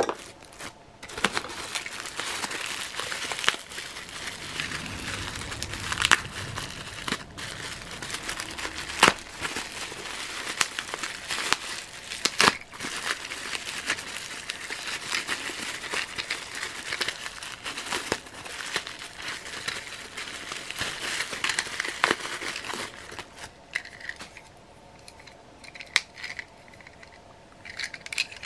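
Bubble wrap and plastic bagging crinkling and crackling as a plastic toy figure is unwrapped by hand, with frequent sharper crackles. The crinkling dies down a few seconds before the end, leaving only a few light clicks.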